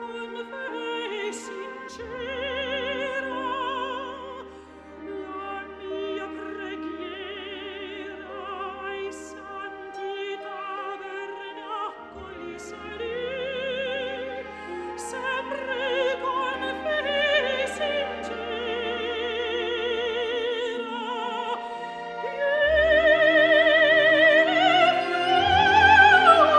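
Background music: an operatic voice singing with strong vibrato over an orchestra, swelling louder near the end.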